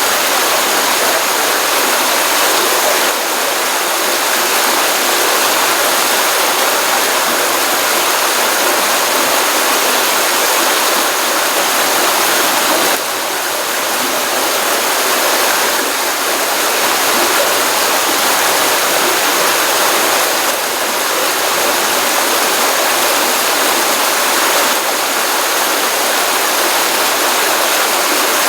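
Stream water running over a pond outlet after a rainstorm: a steady rushing and splashing.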